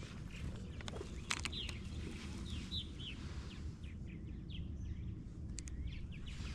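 Songbirds chirping all through, many short quick down-slurred chirps, over a steady low background rumble, with a few sharp clicks about a second in and again near the end.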